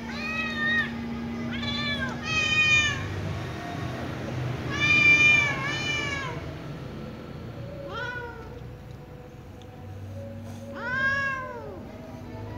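Ginger kitten meowing over and over, about seven meows in quick groups, each rising and then falling in pitch.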